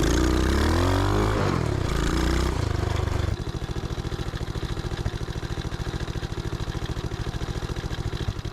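125cc engine of a homemade reverse trike revving, its pitch rising and falling, then abruptly dropping to a steady idle about three seconds in.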